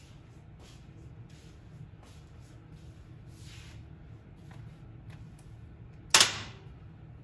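A single sharp knock about six seconds in, the loudest sound by far and fading over about half a second, over a low steady hum and faint scattered clicks.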